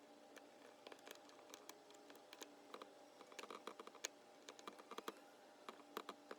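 Faint, irregular small clicks and ticks of a hand screwdriver backing screws out of an RV door grab handle.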